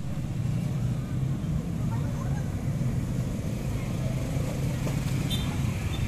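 Motorcycle and scooter engines running as bikes idle and ride past in a crowded street, a steady low hum, with people's voices in the background.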